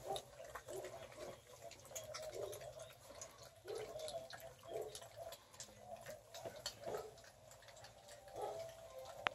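Several five-week-old Catahoula Bulldog puppies eating from a pan of soft food mixed with milk: faint, irregular wet lapping and smacking.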